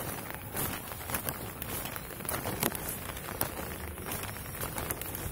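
Light rain falling, an irregular pattering with scattered sharp ticks of drops.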